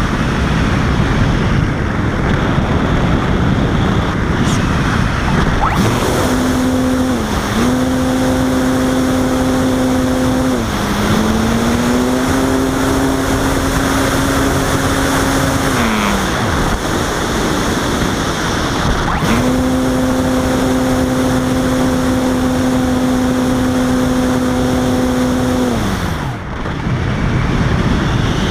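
Wind rushing over a Robbe Arcus Sport RC motor glider in flight, with its electric motor switched on twice for several seconds at a time: a steady whine that dips briefly twice during the first run and winds down in pitch each time it is cut.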